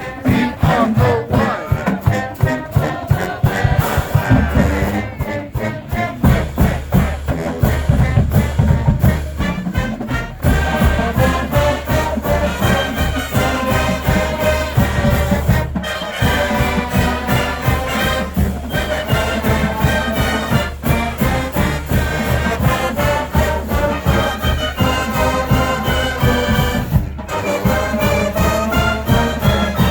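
College marching band playing, with brass and a steady drum beat.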